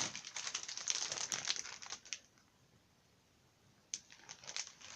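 A packaging bag crinkling and rustling in quick crackly bursts as it is handled. It goes quiet for about two seconds in the middle and starts again near the end.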